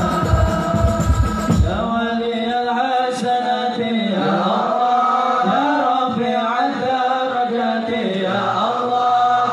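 A group of men chanting a sholawat, a devotional song in praise of the Prophet, in unison. For about the first two seconds drumbeats keep time, then stop, leaving the voices unaccompanied.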